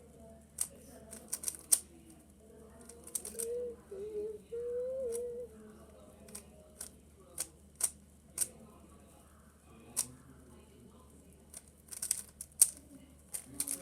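Rubik's cube faces being turned by hand, sharp plastic clicks at irregular intervals, several in quick runs. A short wavering hum from a person's voice about four to five seconds in.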